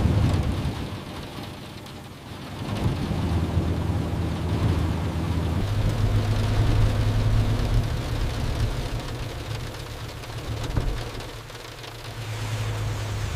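Heavy rain pouring down hard, a dense, steady hiss, with a low rumbling hum underneath that swells and fades.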